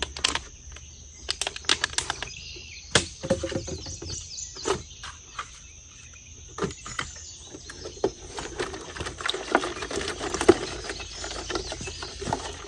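Steady high insect chirring, with many scattered light clicks and knocks as fish are handled and rinsed with water from a plastic gallon jug on a metal tailgate.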